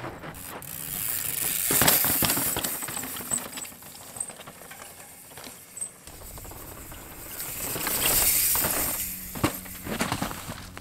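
Mountain bikes passing close by on a dry dirt and rock trail: tyres rolling over the ground with rattles and knocks from the bikes. The sound swells twice, about two seconds in and again around eight seconds.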